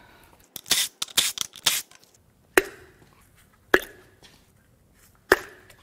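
Hands and tools working on an engine: a short run of crackling and rustling, then three sharp metallic clicks, each with a brief ring, a second or more apart.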